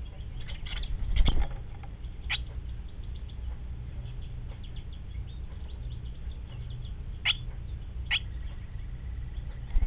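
Three short, sharp downward chirps from a small bird at a barn swallow nest, spaced out over several seconds. About a second in there is a scratchy rustle and a thump, the loudest sound, all over a steady low hum.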